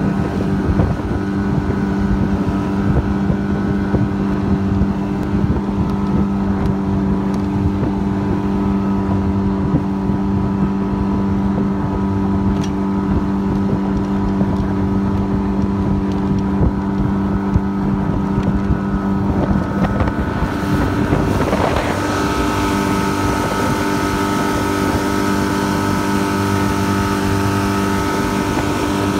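Mercury 20 hp four-stroke outboard running steadily at speed on a small boat, with rushing water and wind buffeting the microphone. The engine note shifts a little about two-thirds of the way through.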